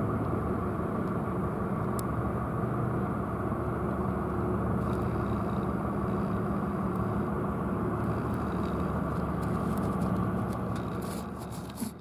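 A motor vehicle's engine running steadily, a low even sound with a faint hum; it fades and cuts off at the very end.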